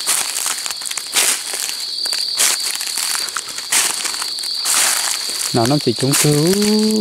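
Insects keep up a steady high-pitched drone while footsteps crunch through dry leaf litter about once a second. Near the end a man's voice starts, wavering and then holding one long drawn-out note.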